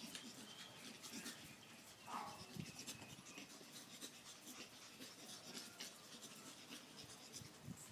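Pug puppies playing on a concrete floor: faint scratching and pattering of their claws and paws, with a short puppy whimper about two seconds in.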